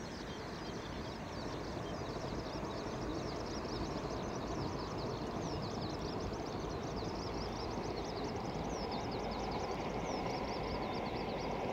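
A distant train running past across open fields: a steady low rumble that grows a little louder, with a faint steady tone in the later seconds. Many short, high chirps from birds sound over it.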